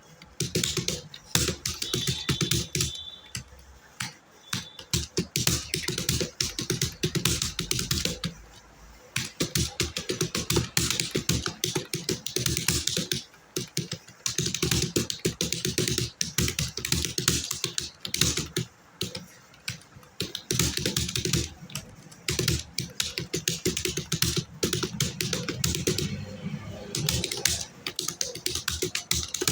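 Computer keyboard being typed on fast, rapid key clicks in runs of a few seconds broken by brief pauses, at a touch-typing pace of about 60 words per minute.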